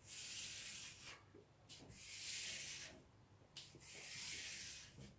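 Hands rubbing flat across the plastic-covered surface of a diamond-painting canvas in three long strokes, each about a second long, smoothing the canvas and pressing the air out from under its film.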